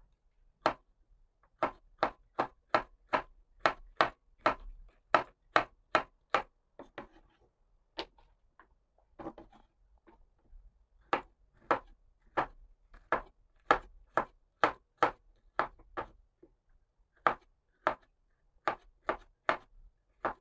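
Kitchen knife slicing bitter melon on a wooden cutting board: a run of sharp knocks as the blade cuts through and hits the board, about two to three a second, broken by a couple of short pauses and a softer scraping sound near the middle as the pieces are moved.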